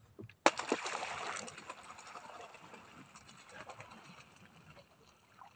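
Trolling handline jerked hard to set the hook on a striking fish: a sudden rush of noise about half a second in that fades over a couple of seconds, then soft rustling and clicks as the line is hauled in by hand.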